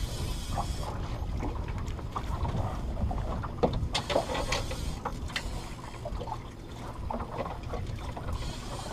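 Low wind rumble on the microphone aboard a small fishing boat, with a handful of sharp light knocks and clicks clustered around the middle.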